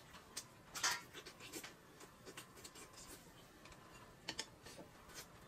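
Faint eating sounds: chewing and small clicks of chopsticks on a bowl of noodles, scattered and irregular, loudest about a second in and again just past four seconds.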